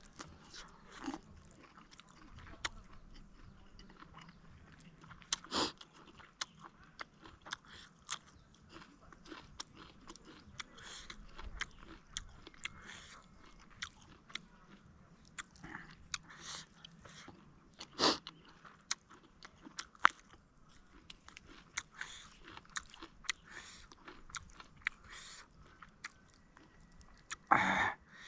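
Close-up mouth sounds of someone eating: irregular biting, crunching and wet chewing of buffalo ribs, with a louder burst near the end.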